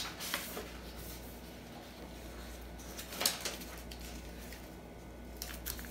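A few soft taps and rustles of items and papers being handled on a kitchen counter, the loudest about three seconds in and a few more near the end, over a low steady hum.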